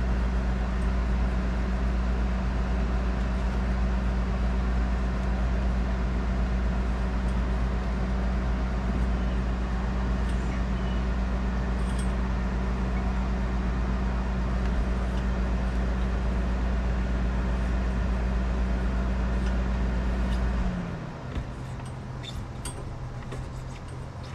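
A motor running with a steady, deep hum, shutting off abruptly about 21 seconds in, its pitch sliding down slightly as it stops. A quieter hum remains afterwards, with a few faint clicks near the end.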